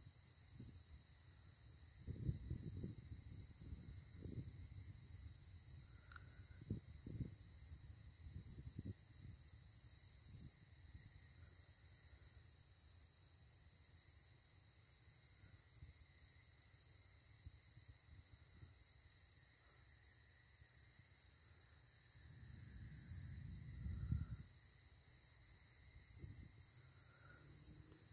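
Faint, steady high-pitched trilling of night insects, with low rumbles on the microphone a few seconds in and again, louder, near the end.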